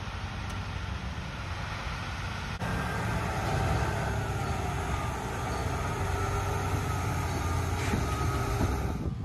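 Large vehicle engine running steadily under way, with a strong low rumble; it cuts about two and a half seconds in to a louder stretch of the same kind of engine noise.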